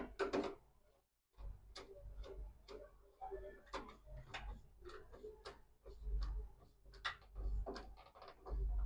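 Irregular light clicks and taps of cable and hands working at the terminals of a double-pole switch inside a steel meter box, with a few low thumps from handling.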